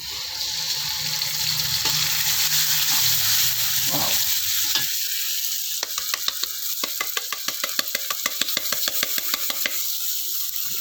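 Spices and oil sizzling loudly in a pan over a high flame while being stir-fried. About halfway through, a rapid run of sharp crackles takes over.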